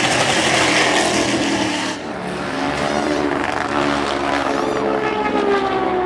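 Race car engines: loud engine noise for about two seconds, then an engine note that slowly falls in pitch as a car goes by.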